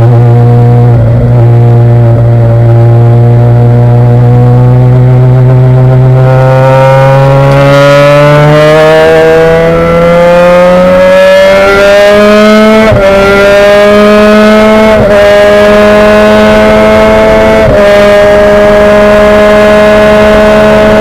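Race car engine heard loud from inside the cockpit: it holds a steady note for several seconds, then climbs steadily in pitch as the car accelerates, with a few brief breaks in the note in the second half.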